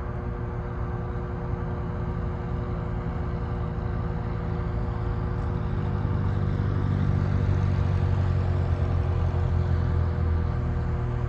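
Low engine rumble that grows louder about six seconds in and peaks near the end, over a steady droning tone.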